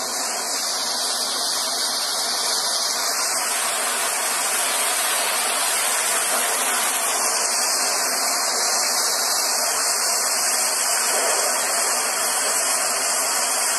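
Steady rain falling: a continuous, even hiss with no breaks.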